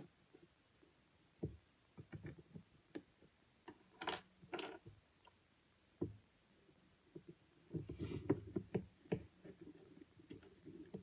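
Scattered clicks, taps and knocks from a Canon 70D DSLR body and a thin pry tool being handled. Two short scrapes come about four seconds in, and a close run of knocks comes around eight seconds in as the camera is turned over in the hands.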